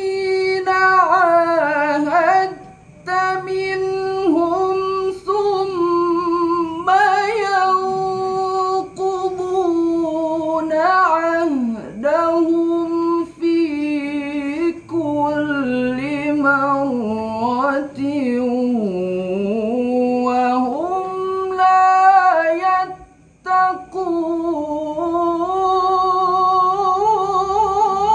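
Solo male Quran recitation (tilawah) in maqam Nahawand. A high voice sings long, richly ornamented melismatic phrases that waver and bend in pitch, broken by short breaths about two and a half seconds in and again near 23 seconds. It is heard through a handheld microphone in a small room.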